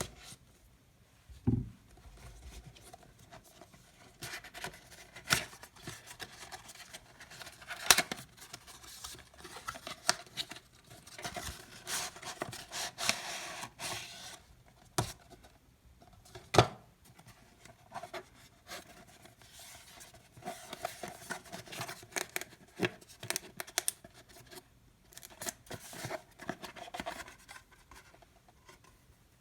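Retail box of a Logitech MX Anywhere 3 mouse being handled and opened: rubbing, scraping and tearing of the packaging, broken by scattered sharp clicks and knocks. A low thump comes about a second and a half in.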